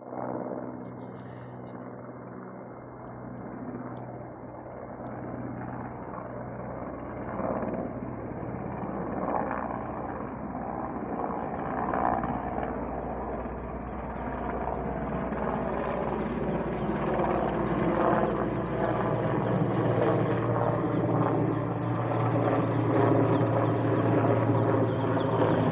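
Helicopter flying at a distance, its rotor and engine drone growing steadily louder as it approaches.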